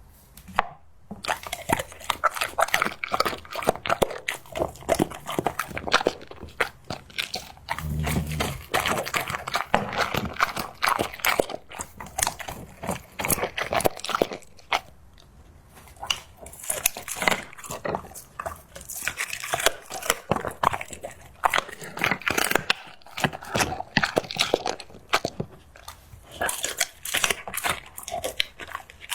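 A dog gnawing a big bone, with dense, irregular crunches and bites. A low thump comes about eight seconds in, and there is a short lull about halfway through.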